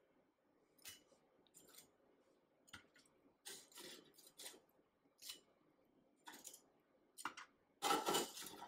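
Metal tongs clicking and scraping against a deep fryer's wire mesh basket as fried shrimp are picked out, in short scattered clicks, with the longest and loudest scrape near the end.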